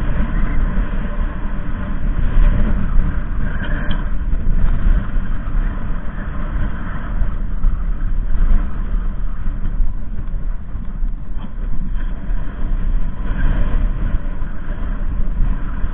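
Wind buffeting the camera's microphone: a loud, constant, uneven low rumble.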